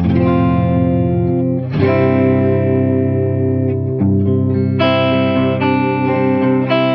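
Electric guitar chords played through an Electro-Harmonix Intelligent Harmony Machine pitch-shifting pedal, set fully wet to drop the pitch a whole tone to imitate a lowered drop tuning. The chords are strummed and left to ring, with a new chord about every second or two, and the shifted sound has a slightly odd, wavering quality.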